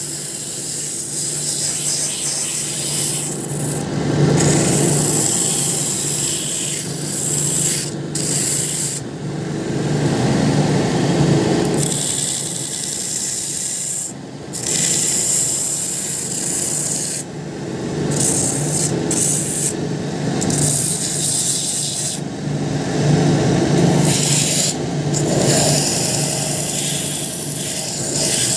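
Shoe finishing machine's sanding wheel grinding the rubber sole of a sneaker: a steady motor hum under a rasping scrape that breaks off for moments each time the shoe is lifted and set back on the wheel. The worn sole is being ground down to sink a level base for a glued-in patch.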